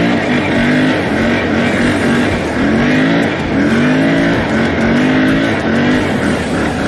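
Can-Am XMR off-road engine on its stock exhaust, running under throttle while riding, its note rising and falling over and over as the throttle is worked.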